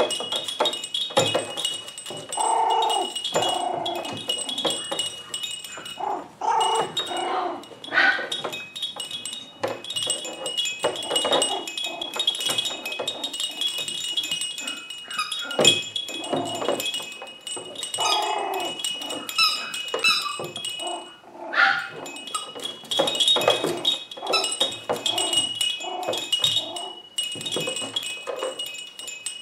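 Seven-week-old poodle puppy making repeated short play vocalizations while tugging at a hanging baby toy, which jingles and rings steadily with scattered knocks and rattles.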